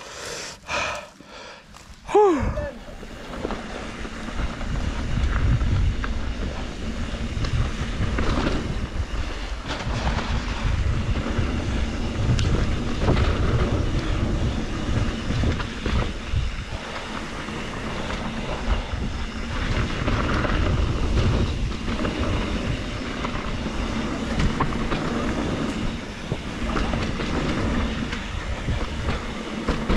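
Mountain bike setting off and rolling down a dirt trail from about three seconds in: a continuous, uneven rumble of tyres and bike over the ground, with wind noise on the microphone.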